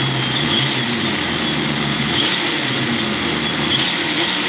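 Two brushless motors on a test rig running steadily, driving 3D-printed PETG dual helical gears through a 5:1 reduction.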